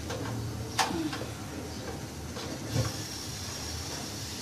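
Minced meat sizzling as it is fried in a nonstick frying pan, stirred with a spatula that scrapes the pan. A sharp clack of the spatula on the pan about a second in, and a knock near three seconds.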